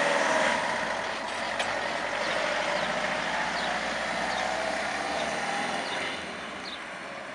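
A van driving past at close range, its engine and tyre noise fading slowly as it pulls away.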